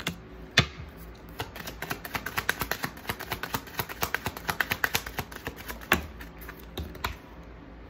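A deck of oracle cards being shuffled by hand: a quick run of card-on-card clicks, about eight a second, with a few louder single taps.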